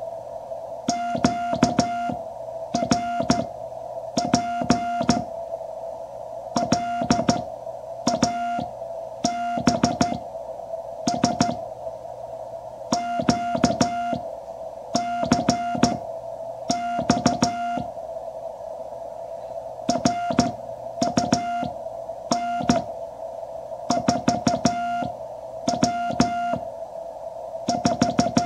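Morse code sidetone from a QRP Labs QCX CW transceiver: a single steady tone of about 700 Hz keyed into dots and dashes as the operator sends by hand on a paddle key, with a sharp click at the edge of each element. The message, in groups of characters with short gaps, reads 'rig here is QRP Labs QCX, run 4 W'.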